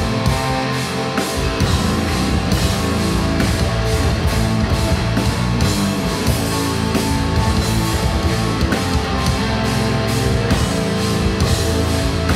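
Instrumental progressive metal band playing live: electric guitars hold dense chords over a steady drum-kit beat, about three hits a second.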